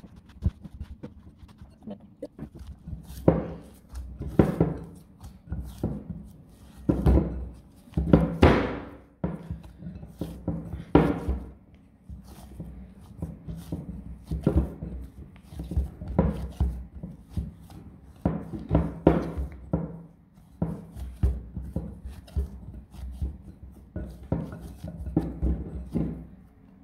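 Poori dough of wheat flour being kneaded by hand in a bowl: irregular, repeated thumps as the dough is pressed and worked, several a second, loudest in the first half.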